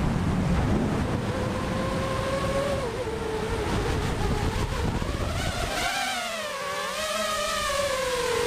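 Drone motors and propellers whining, heard from the drone's own camera; the pitch dips and rises again in the second half as the throttle changes. Wind buffets the microphone for the first half.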